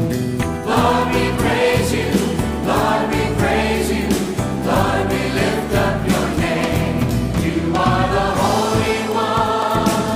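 Music: a choir singing, with held notes that change every second or two.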